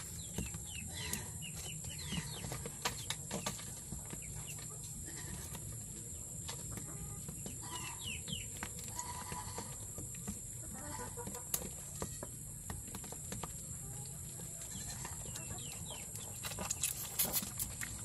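Chickens clucking and chirping faintly, with scattered clicks and knocks from goat kids feeding at a hand-held milk bottle.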